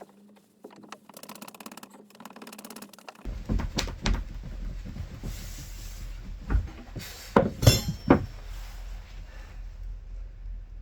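Hard knocks and clunks of pieces being handled and set down, loudest in a cluster of three sharp knocks about seven to eight seconds in, over a low rumble. A steady low hum runs through the first three seconds.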